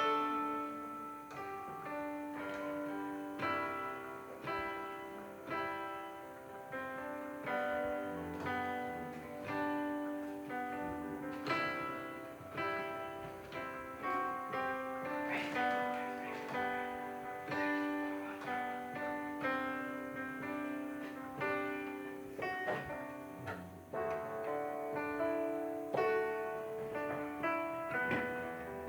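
Electronic keyboard, triggering sounds from an iPad, playing a slow Christian piece: a melody of single notes over long held chords.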